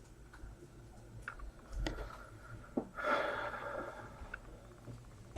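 Faint, scattered light clicks and a soft rustle, about a second long, three seconds in, as trading cards are handled.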